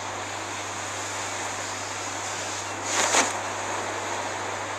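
Steady sea surf washing on a beach, with a louder rush of breaking water about three seconds in, over a low steady hum.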